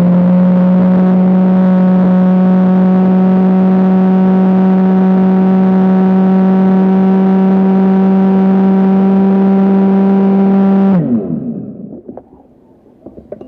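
Electric blender motor running steadily at high speed, blending milk and crushed ice, then switched off about eleven seconds in and winding down with a falling pitch.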